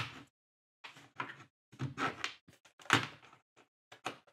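Molded plastic RC drag car chassis parts knocking and clicking together as the rear chassis brace is handled and pressed into place on the chassis: a run of short sharp knocks, the loudest about three seconds in.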